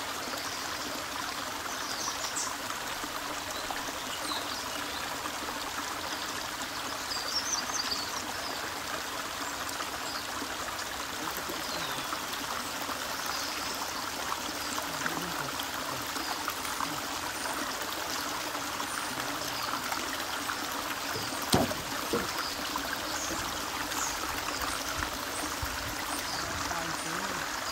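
Shallow stream flowing over flat rock, a steady rush of water, with a sharp click about three-quarters of the way through.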